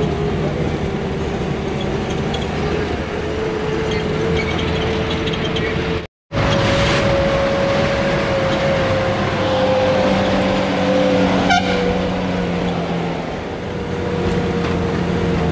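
Bus engine and road noise heard from inside a moving bus on a steep mountain road, with a steady whine running through it. The sound drops out for a moment about six seconds in, and a single knock is heard near the end.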